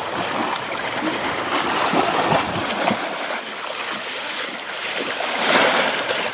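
Splashing footsteps of a person wading through shin-deep water, uneven and noisy, swelling loudest about five and a half seconds in.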